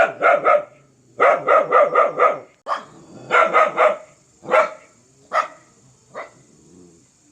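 A dog barking in rapid volleys of three to five sharp barks, then single barks spaced about a second apart that weaken toward the end.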